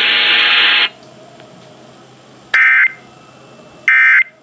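Loud radio static that cuts off suddenly about a second in, followed by two short, buzzy Emergency Alert System data bursts a little over a second apart: the SAME end-of-message tones that close an alert broadcast.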